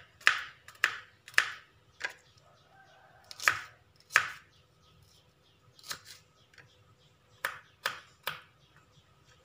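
Kitchen knife cutting shallots and garlic cloves on a wooden chopping board: about a dozen short, sharp taps of the blade on the board at an uneven pace, with a pause a little before the middle.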